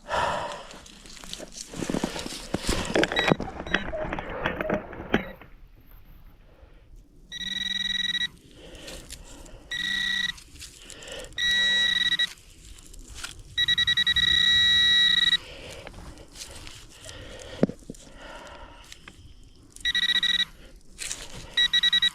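Crunching and scraping of digging in snowy ground for about five seconds. Then a metal detector gives a steady high-pitched tone in repeated bursts of half a second to two seconds as it is passed over the dug target. It is the high tone of a high-conductor signal.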